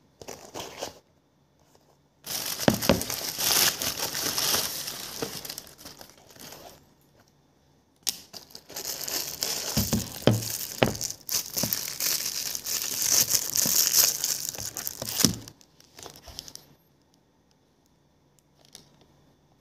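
Clear plastic wrapping crinkling and rustling as it is crumpled in the hands, with sharp crackles. It comes in two long stretches, starting about two seconds in and again about eight seconds in.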